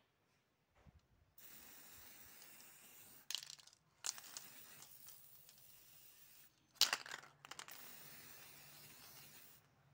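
Aerosol spray can hissing in three long sprays of two to three seconds each, separated by short breaks. There are louder sputtering spurts at the breaks between the sprays.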